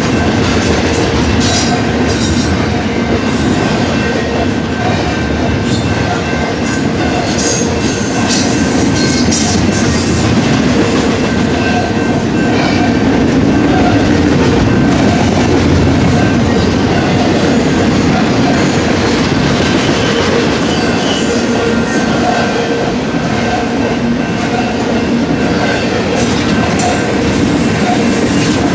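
Double-stack intermodal well cars of a freight train rolling past steadily, a continuous loud rumble and clatter of steel wheels on the rails with a thin wheel squeal running through it.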